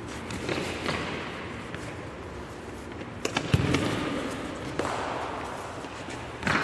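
A football being kicked and bouncing on a concrete court in a large hall: a string of separate thuds, with the loudest about three and a half seconds in.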